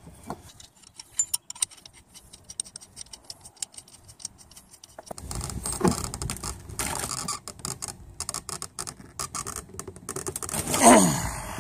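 Metal fuel pump lock ring being turned with a spanner tool on a plastic fuel tank: scattered clicks and scraping of the ring and tool, with rougher scraping after about five seconds. Near the end comes a louder short sound that falls in pitch.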